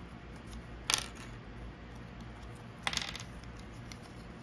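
Two sharp clacks about two seconds apart: cardboard zombie standees in clear plastic stands set down on a wooden table.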